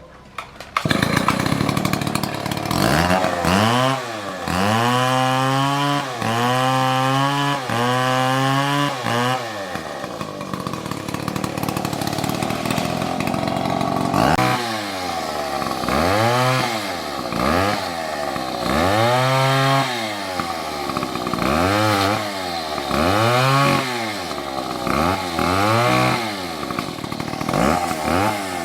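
Stihl MS720 two-stroke chainsaw running, its engine revving up and down over and over, about once a second. It holds a steadier pitch for a few seconds in the middle before revving again.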